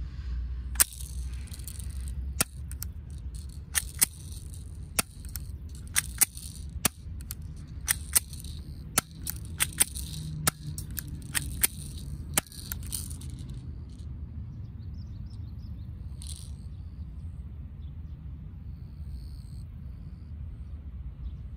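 Academy M9 spring airsoft pistol being cocked and fired over and over: sharp snaps about once a second with short scraping sounds of the slide between them, stopping about thirteen seconds in. After that there is only a low wind rumble on the microphone.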